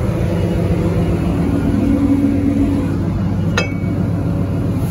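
Heavy diesel machinery running steadily close by, a low rumble with a steady hum, with one sharp click about three and a half seconds in.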